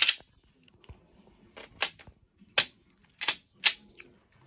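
Semi-automatic pistol being handled: a short metallic rattle at the start as the slide is worked, then four sharp clicks spread over the next two seconds, the clicks of the pistol's slide and parts moving.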